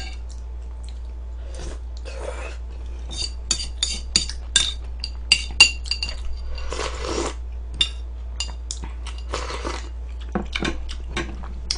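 Metal tongs clinking and tapping against a bowl and a griddle tray as food is picked up: many sharp, irregular clinks with a short ring, with a few brief softer rustling sounds between them.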